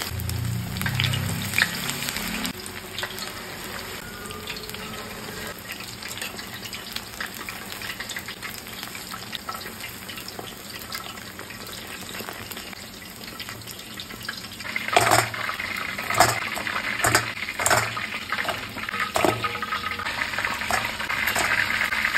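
Battered chicken pieces deep-frying in hot oil, a steady sizzling and bubbling; this is the first fry before the chicken is rested and double-fried. From about fifteen seconds in, metal tongs click and knock against the pan and colander several times as pieces are turned and lifted out, and the sizzling grows louder.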